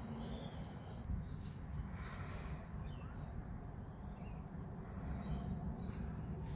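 Soft rustling and handling of a fluffy yarn toy as a tail is sewn on with a needle, over low steady background noise. A few faint high chirps come and go.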